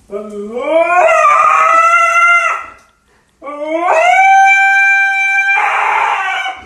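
Husky howling: two long howls, each rising in pitch and then held, the second turning raspy near its end.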